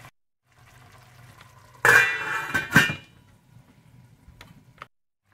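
A metal utensil clanking and scraping against a cooking pot for about a second as the beef roast is turned over, ending in one sharp clink, then two light taps near the end.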